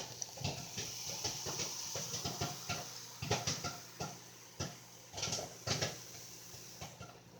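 Microwave popcorn popping: irregular sharp pops, some in quick clusters, over a low steady hum.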